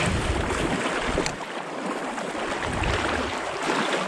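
Shallow trout stream running fast over stones, heard close up from within the current, with uneven low rumbles coming and going.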